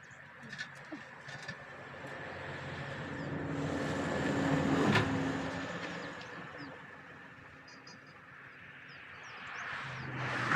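A motor vehicle's engine passing by, growing louder to a peak about halfway through and then fading, with a second vehicle approaching near the end.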